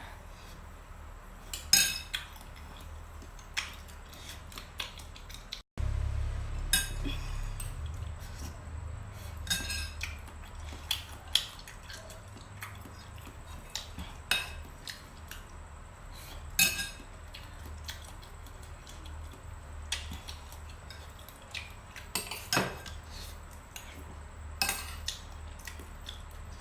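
Cutlery clinking against a dish during eating: sharp clinks every second or two. A brief dropout about six seconds in, after which a low hum sits under the clinks.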